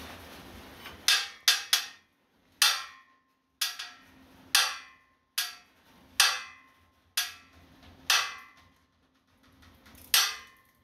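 A series of about eleven sharp metallic clanks, irregularly spaced about a second apart, as an engine hoist lets the rear of a mega truck down and the freshly tacked suspension takes up the load.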